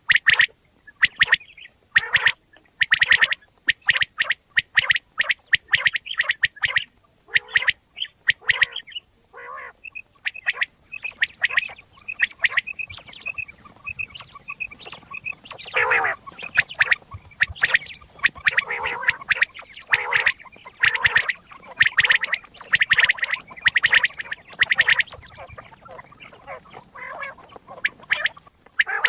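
Common quail calling, a recording of the kind played to lure quail: dense series of short, rapid rasping calls, broken in the middle by a run of quick, evenly spaced high notes before the dense calling resumes.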